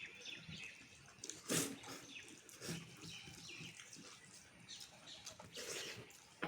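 Mouth sounds of someone eating rice with dal and curries: soft, irregular wet chewing and lip-smacking.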